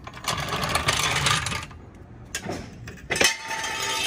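Steel floor jack and jack stand being handled on concrete under a car: two stretches of metal scraping and clanking, each over a second long, the second with a ringing metallic tone, and a single knock between them.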